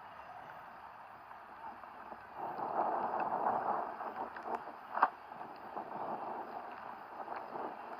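Heavy rain falling, a steady hiss of drops that swells louder for a second or so about two and a half seconds in, with a sharp tap about five seconds in.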